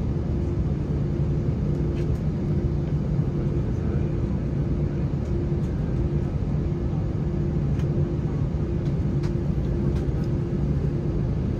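Steady low hum inside the cabin of an Airbus A321, the aircraft's systems running with a constant tone, and a few faint clicks scattered through it.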